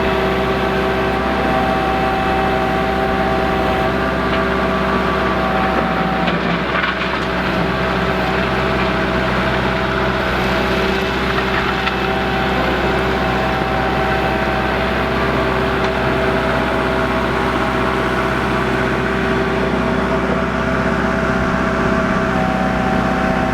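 Kubota MX 5400 tractor's diesel engine running steadily.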